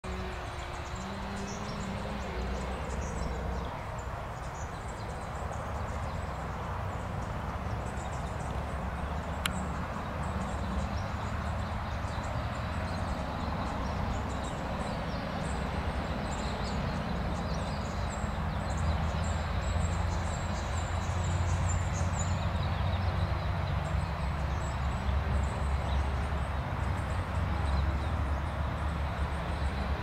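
Outdoor ambience: a steady low rumble that grows louder past the middle, with faint, high chirps of small birds now and then and a single sharp click about nine seconds in.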